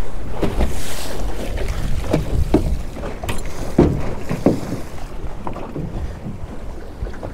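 Wind buffeting the microphone over choppy water slapping against a small aluminium boat, with several sharp knocks and slaps in the first five seconds.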